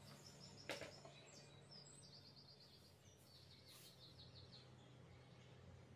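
Near silence: faint, rapid, high bird trills and chirps over a steady low hum, with one light knock a little under a second in as a framed picture is hung on the wall.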